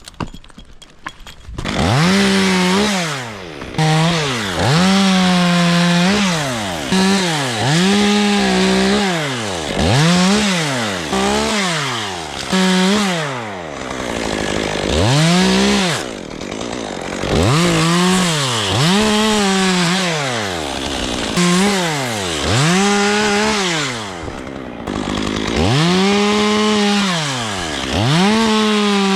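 Gas chainsaw revved to full throttle and let back off over and over, more than a dozen times, each rev held for about a second, as it works through oak wood. It starts up about two seconds in, after some quieter clicking and handling.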